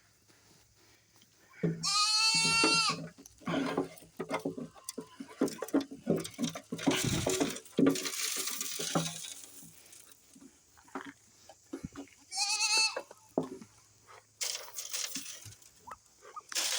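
Goats bleating: one long bleat about two seconds in and a shorter one near the end, with a stretch of irregular knocks and rustling between them.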